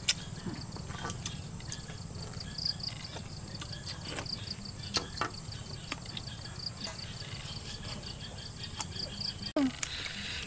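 Insects calling in a steady, evenly pulsing rhythm over a low steady rumble, with scattered light clicks and knocks.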